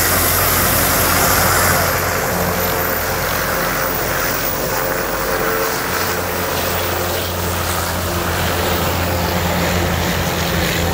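Army MH-6 Little Bird helicopter's turbine and rotor running as it lifts off and hovers low, with a steady low rotor hum under engine noise. The high hiss drops about two seconds in.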